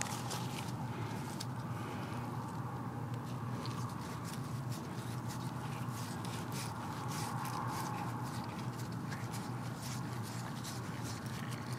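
Hand digging in soil around a buried pop-up sprinkler head: irregular short scrapes and clicks over a steady low hum.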